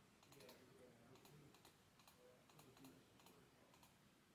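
Faint, irregular clicking of a computer keyboard and mouse, about a dozen quick clicks, some in close pairs.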